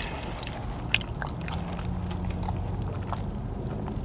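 A person chewing a mouthful of burger close to a clip-on microphone, with scattered small wet mouth clicks, over a steady low hum.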